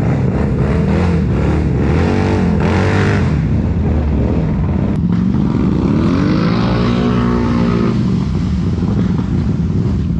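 Off-road vehicle engines, ATV and side-by-side, running hard in deep mud with a steady low drone. An engine revs up and back down twice, briefly about a second in and for longer near the middle.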